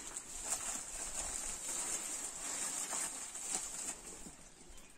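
Plastic grocery packages crinkling and rustling as they are handled and set down on a wooden table, with a few light knocks, over a steady high hiss.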